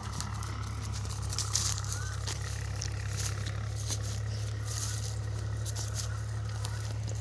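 Footsteps and paws crunching through dry crop stubble and straw, with scattered crackles and scrapes, over a steady low engine drone.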